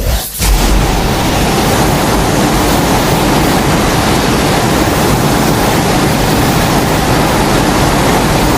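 Loud, steady rushing noise from a custom-made Godzilla sound effect, after a brief dip just after the start.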